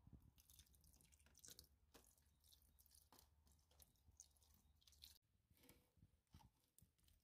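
Near silence, with faint scattered ticks and a low steady hum.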